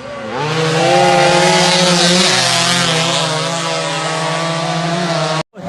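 Drag-racing motorcycle engines at high revs, the pitch climbing about half a second in and then holding high with a loud hiss of exhaust. The sound cuts off suddenly near the end.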